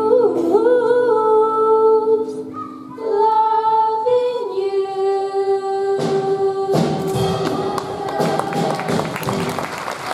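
Show choir singing, led by two girls' voices in a duet on sustained, held notes. The song closes on one long held note, and from about six seconds in audience applause rises beneath it.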